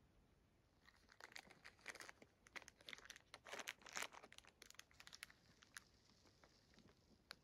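Plastic fig-bar wrapper crinkling as it is handled, a dense run of faint crackles from about a second in until nearly six seconds, then a few scattered clicks.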